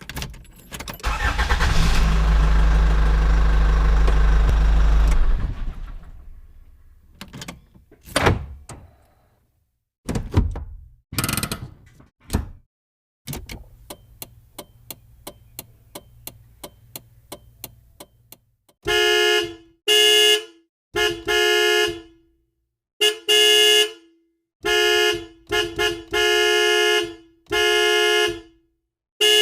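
A run of car sound effects: a car engine starting and running for about five seconds, then a few clicks and knocks, then steady ticking about three times a second like a turn-signal relay, and finally a car horn honked about a dozen times in short and longer blasts.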